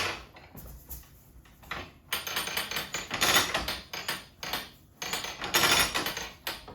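Floor loom being advanced to wind the warp forward: a sharp knock at the start, then clicking and clattering from the loom's beam and ratchet mechanism in two long stretches, with a short break about five seconds in.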